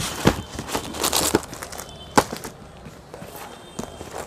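Irregular knocks, clicks and rustling handling sounds, with one sharp click about two seconds in.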